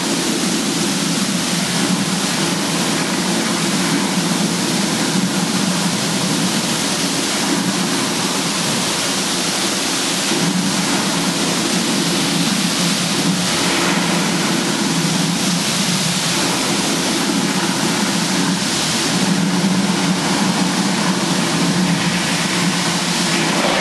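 Mirage volcano attraction erupting: a steady, loud rushing noise like pouring water, with a low rumble under it, from the show's water cascades and fire jets.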